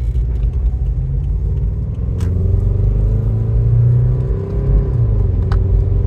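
Toyota Matrix XRS's 2ZZ four-cylinder engine pulling under acceleration inside the cabin, rising in pitch and then dropping back about four and a half seconds in. It sounds lumpy, "just like a Subaru": a permanent misfire on cylinder one, which the owners take for a dirty injector.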